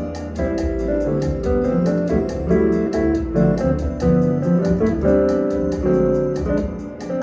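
Instrumental music led by piano or keyboard chords over a bass line, with a steady beat of light ticks.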